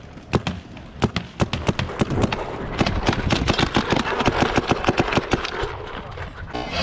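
Paintball markers firing: a fast, irregular string of sharp pops, thickest in the middle, several shots a second.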